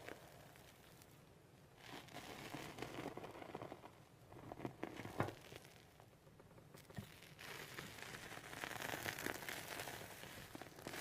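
Slime being squished and worked: intermittent wet, crinkly squishing with a few sharp pops, busiest in the last few seconds.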